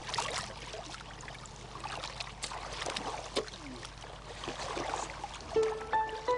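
Wet mud and shallow water being dug through by hand for bait worms: irregular splashing, dripping and squelching with short clicks. A simple melody of steady notes comes in near the end.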